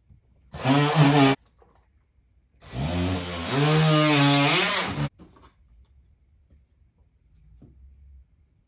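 Oscillating multi-tool cutting an outlet-box opening in drywall: a short burst about half a second in, then a longer run of about two and a half seconds whose pitch wavers, stopping sharply about five seconds in.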